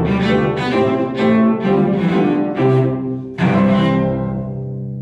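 Cello and piano playing the closing bars of a piece, a run of notes leading to a final chord struck about three and a half seconds in. The chord is left to ring and slowly fade.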